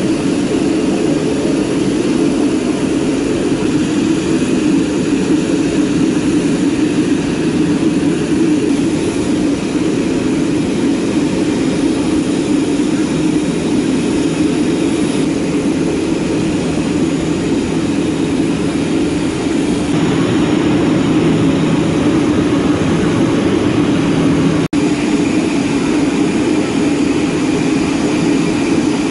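Jet airliner running on the apron: a steady, loud, low drone, with a momentary break near the end.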